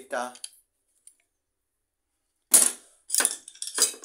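Steel hand tools knocking against one another as they are handled, about four sharp metallic clanks with a bright ringing tail over the second half.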